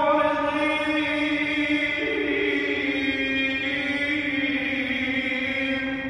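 A man chanting Quran recitation in one long held melodic phrase, stepping up to a higher note about two seconds in, settling back down and trailing off at the end.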